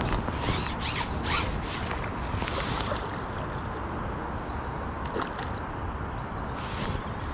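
Wind rumbling on the microphone, with short intermittent scraping and rustling noises, most of them in the first few seconds.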